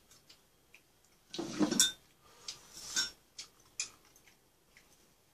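Metal spoon and chopsticks clinking and scraping against the hot pot pan and bowls: a louder scrape about a second and a half in, then several light clicks.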